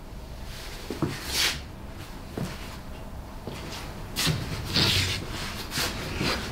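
Irregular rubbing and scuffing noises from a person moving about: several short bursts, with a longer, louder stretch about four to five seconds in.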